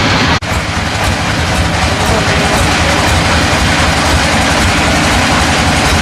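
Sawmill machinery running: a loud, steady mechanical din with a faint regular clatter, after a brief dropout just under half a second in.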